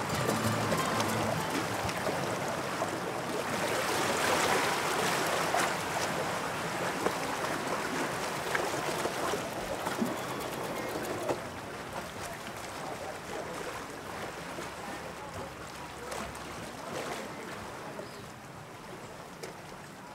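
Steady rushing of sea waves, strongest about four seconds in and then fading gradually.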